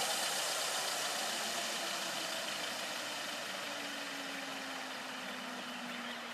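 Electric NH-90 scale model helicopter winding down on the ground: the main rotor and motor spin down, the sound fading steadily with a faint tone slowly falling in pitch.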